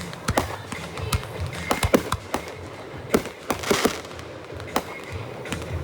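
Aerial fireworks going off in quick succession: a rapid string of sharp bangs and booms, with a dense rush of crackling a little past the middle.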